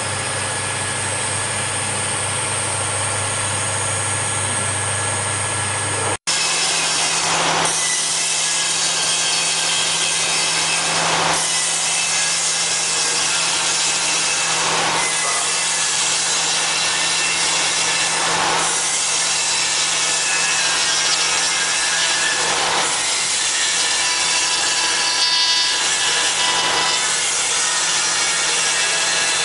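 A CNC router spindle cutting into wood, heard as a steady whine and hiss. The cut swells every three to four seconds as the tool makes its passes. It follows a steadier, lower machine hum that cuts off abruptly about six seconds in.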